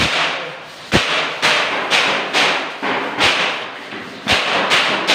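A hand hammer striking hard against a wall about twice a second. Each blow is a sharp knock with a short fading tail, and the spacing is slightly uneven.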